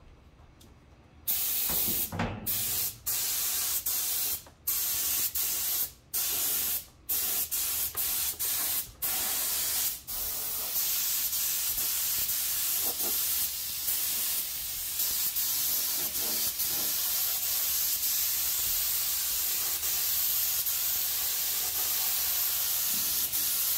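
Compressed-air spray gun hissing as it sprays glue. It starts about a second in and is cut off briefly a dozen or so times as the trigger is let go and squeezed again. From about ten seconds in it runs as one steady spray.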